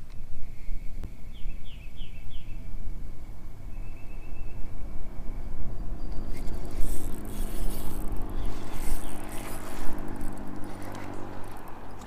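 Wind rumbling on the microphone over a kayak on a river. A bird calls in the first half, four quick high chirps and then a short trill. In the second half come busier water and movement noise, a few sharp clicks and a low steady hum.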